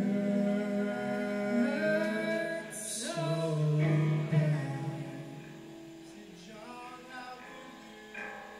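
Live band singers holding long sung notes with little instrumental backing, several pitches sounding together. A brief hiss comes about three seconds in, and after about five seconds the singing fades, leaving a fainter sustained note.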